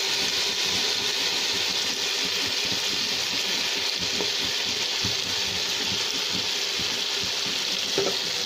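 Shredded carrot, cabbage and green capsicum sizzling in hot oil in a pan just after being tipped in, a steady hiss. A spatula knocks against the pan now and then, with a sharper knock near the end.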